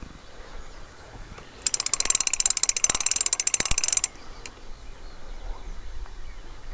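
A mechanical ratchet clicking rapidly for about two and a half seconds, starting about two seconds in and stopping abruptly.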